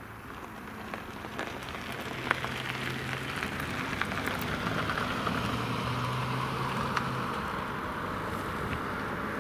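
Quest Kodiak 100's Pratt & Whitney PT6A turboprop and propeller building up to takeoff power at the start of the takeoff roll. A hissing, rushing noise over a steady low drone grows louder over the first few seconds, with a few sharp crackles.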